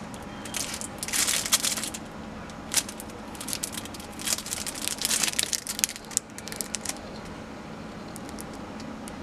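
Clear plastic wrapping around a handheld remote control crinkling as it is handled, in irregular bursts.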